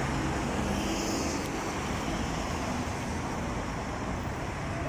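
Steady outdoor background noise: an even hiss with a low rumble underneath and no clear single event.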